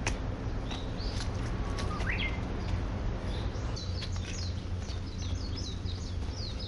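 Birds chirping: scattered short high calls, a rising call about two seconds in, then a quick run of chirps in the second half, over a steady low hum.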